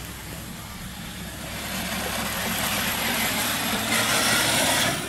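Battery-powered toy Harley-Davidson ride-on motorcycle driving on wet asphalt: a steady motor hum with a hiss of wheels on the pavement that grows louder as it comes closer, then drops away sharply at the very end.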